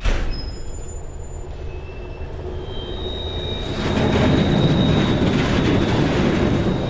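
Running noise of a TER 2N NG double-deck electric multiple unit, heard from the driver's cab. It cuts in suddenly as a dense rumble that grows louder about four seconds in, with thin high-pitched squeals from the wheels on the rails.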